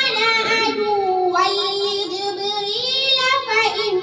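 A young girl reciting the Quran in the melodic, chanted tajweed style, drawing out long held notes whose pitch wavers and turns.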